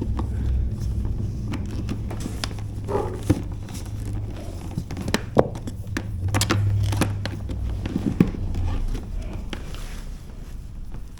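Handling noise: scattered light clicks and rustles over a low, steady rumble.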